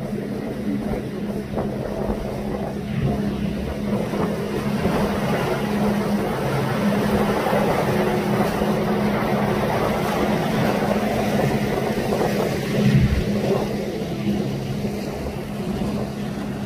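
Motorboat engine running at a steady speed with the boat under way, a constant low hum under the rush of water past the hull.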